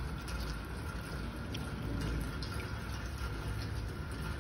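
Steady rain falling in a thunderstorm, with a low rumble underneath and a few faint drip ticks.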